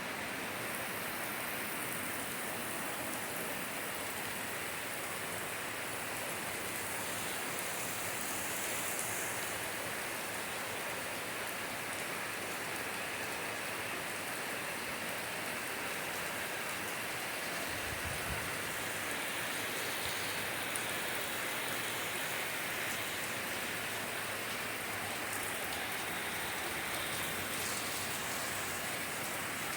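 Steady, even hiss of rain falling, mixed with wind and water rushing down the mountainside. A brief low bump about eighteen seconds in.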